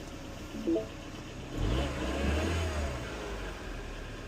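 Chevrolet HHR engine starting up on a newly programmed key and settling toward idle, after a short beep. The start is the sign that the key programming worked.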